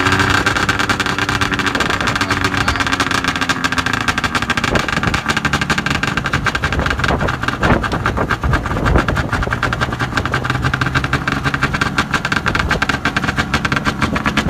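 Arctic Cat ZR440 snowmobile's two-stroke twin engine, just caught from a cold start on choke, settling into a steady idle.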